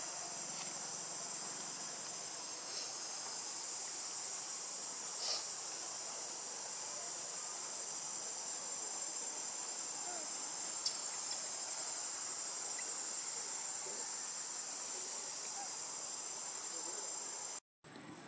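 Steady, high-pitched shrill drone of an insect chorus, with a few faint ticks; it cuts out for a moment near the end.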